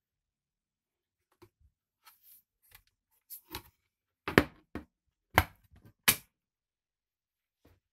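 A scattered series of sharp clicks and knocks, the three loudest coming about a second apart in the middle, with dead silence between them.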